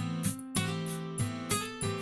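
Background music with a steady beat, led by a strummed guitar.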